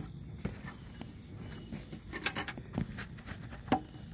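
Scattered sharp clicks and light metallic rattles of a key and a quick-release lock being worked as a saddlebag is locked onto its bracket, with a quick cluster of clicks a little past two seconds in.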